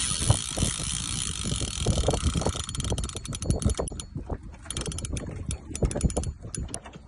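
Spinning reel's drag clicking in rapid, irregular runs as a hooked fish takes line against it, over low handling knocks.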